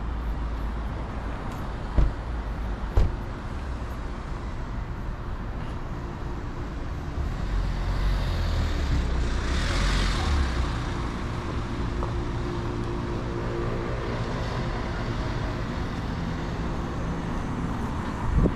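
Road traffic: a steady low rumble, with a vehicle passing that is loudest about ten seconds in. Two sharp knocks a second apart come about two seconds in.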